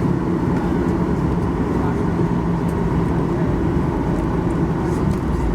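Steady hum and rumble inside the cabin of a Boeing 737-800 on the ground, its CFM56 engines at idle, with a low drone.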